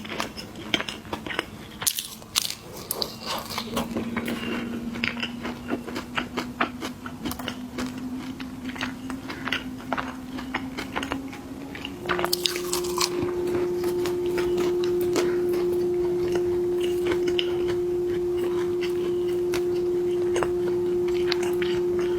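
Crunchy snacks being bitten and chewed, with many sharp crunches. A steady hum runs underneath and about halfway through jumps higher in pitch and gets louder.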